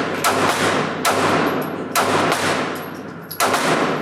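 Four gunshots at irregular spacing, each sharp crack followed by a long echoing tail.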